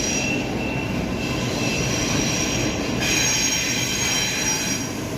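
Sydney Trains electric suburban train departing the platform: a steady low rumble with thin high-pitched squealing tones from wheels and traction gear, which grow stronger about three seconds in.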